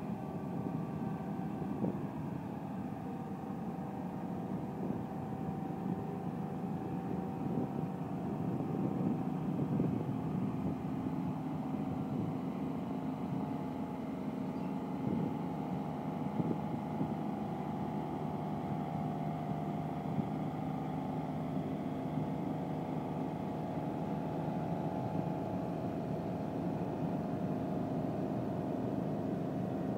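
Diesel engine of a small red grab-dredger workboat running steadily, a constant low hum.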